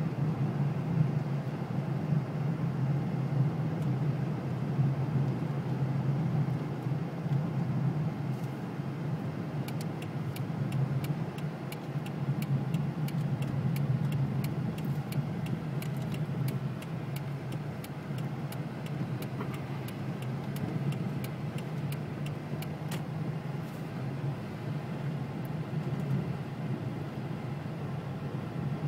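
Car driving on a snow-covered, icy road, heard from inside the cabin: a steady low rumble of engine and tyres. Through the middle part a run of light, irregular ticks, about three a second, sits over it.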